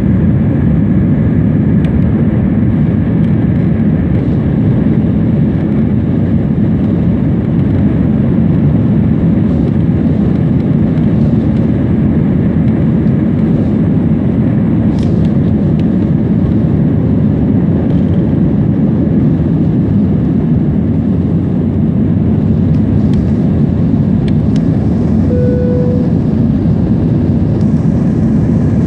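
Jet airliner on its takeoff roll and lift-off, heard from inside the cabin: the engines at takeoff thrust make a loud, steady, deep rush.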